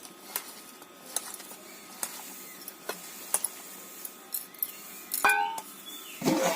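Scattered light clicks and taps of kitchen work, then a metal utensil clinking with a short ringing tone about five seconds in, and more clattering near the end.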